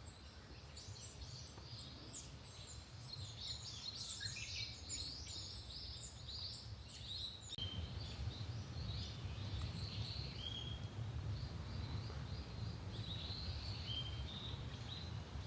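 Small songbirds chirping and twittering, a dense chatter of many calls for the first half, then sparser calls with a few short whistled notes. Under them a steady low rumble that grows louder about halfway through.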